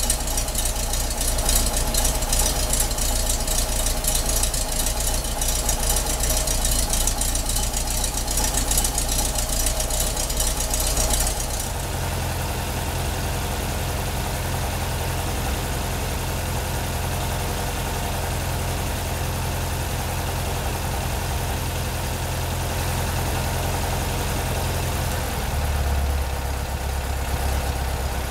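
Classic VW Beetle's air-cooled flat-four engine idling. About eleven seconds in, the sound changes abruptly: the hiss drops away and a steadier low hum is left. The engine note shifts briefly near the end.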